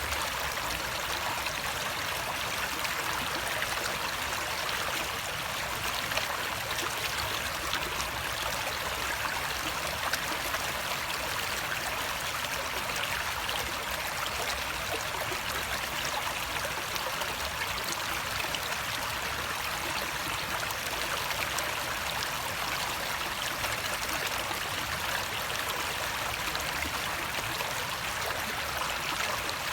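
Flowing water running steadily, a constant even rush with most of its sound in the upper-middle range and little low rumble.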